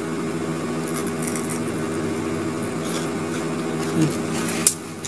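A steady buzzing hum of several even pitches, like a small electric motor or fan, with faint crunching as fried grasshoppers are chewed and a sharp click just before the end.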